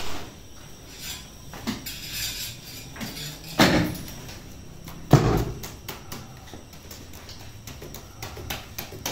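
Workshop noise from bakery work: a few dull thuds and knocks, the heaviest about three and a half and five seconds in, over light clatter.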